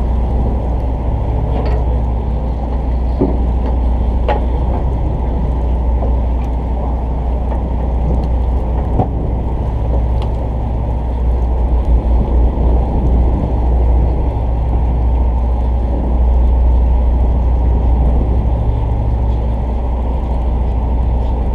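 Fishing boat's engine running steadily, a continuous low drone, with a few faint clicks over it.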